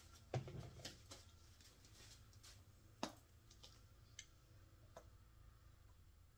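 Plastic squeeze bottles of acrylic paint being handled: a soft knock about half a second in, a sharp click about three seconds in, and a few fainter ticks, otherwise near silence.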